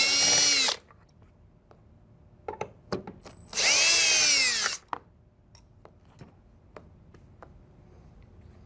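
Milwaukee M18 cordless drill/driver spinning screws out in two bursts of about a second each, one at the start and one about three and a half seconds later, the motor's whine dropping in pitch at the end of each. A few light clicks and knocks come between and after the bursts.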